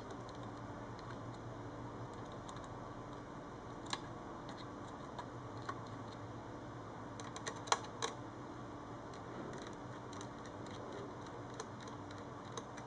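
Sparse small clicks and taps from hands handling a wireless access point's circuit board and its small parts. There is one click about four seconds in and a quick cluster of clicks around seven to eight seconds, over a faint steady hum.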